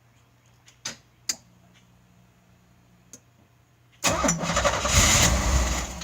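Starter cranking the Fiero's 3.4 L V6 for about two seconds without it starting, after two sharp clicks about a second in; the engine has refused to start since its injectors were swapped back to used original 2.8 L ones.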